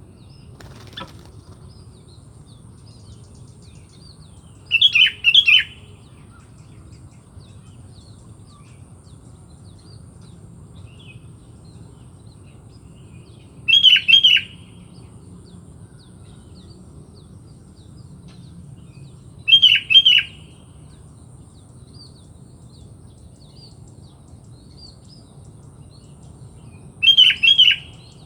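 Sooty-headed bulbul (kutilang) calling: four short bursts of two or three quick loud notes, spaced about six to nine seconds apart. Fainter small chirps come between them over a faint steady high whine.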